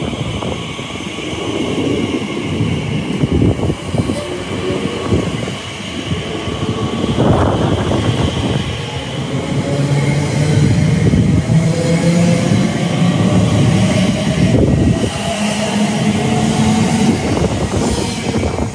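A train running through the station, with a rumble of wheels on rails. Over the second half a motor whine climbs slowly in pitch as the train picks up speed.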